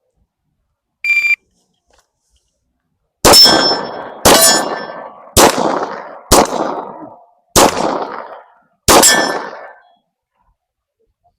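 A shot timer beeps once. About two seconds later, after the draw from concealment, a pistol fires six shots roughly a second apart, each hit ringing off steel targets.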